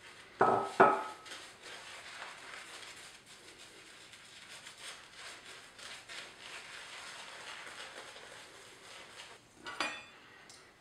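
Shaving brush swirling lather on a face, a soft wet swishing. Two loud ringing clinks, like a hard dish or mug being struck, come about half a second in, and another comes near the end.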